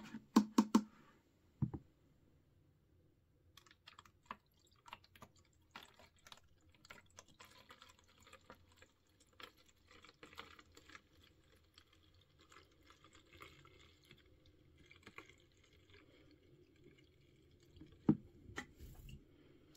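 Water poured slowly from a plastic cup into a toy's plastic potion bottle, faint trickling and dripping with light plastic clicks and taps. There is a soft knock about two seconds in.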